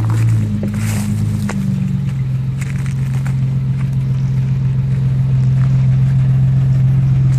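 Four-wheel-drive engine running at a steady speed. About a second and a half in it settles onto a slightly higher, even note, with a few light clicks over it.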